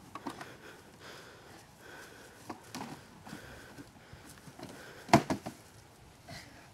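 Scuffling and scattered knocks as two people grapple against hollow plastic bins, with one sharp, loud knock and a couple of smaller ones about five seconds in.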